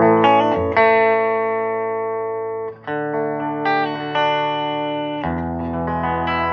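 Electric guitar chords on a Telecaster's middle pickup played through a 1960s Elk Custom 30 amplifier with an EL84 power amp. The first chord rings and slowly fades, a new chord is struck about three seconds in with notes moving over it, and another chord comes in a little after five seconds.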